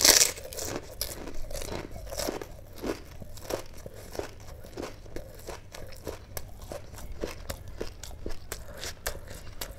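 A person chewing a whole pani puri with a mouthful of spiced water. It opens with a loud crunch as the crisp shell breaks, then goes on in steady crunching chews, about three a second.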